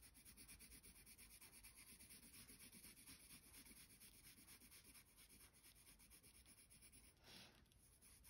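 Green coloured pencil shading on paper: faint, quick back-and-forth scratching strokes, several a second, with a brief louder scrape about seven seconds in.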